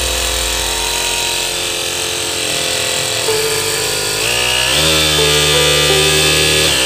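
12 V DC mini air compressor running, powered from a switchable-voltage adapter. Its motor hum changes pitch at a little over three seconds, rises and grows stronger at nearly five seconds as the voltage is stepped up, then drops back near the end.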